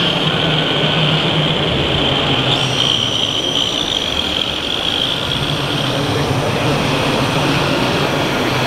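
RC Ratrac 6000 snow groomer model driving over artificial snow: its electric drive and tracks give a steady high whine over a low hum. The general noise of a crowded hall runs behind it.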